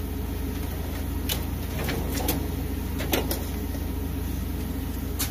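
Steady low background hum with a few faint, sharp clicks and a short clink, as of small hand tools being handled.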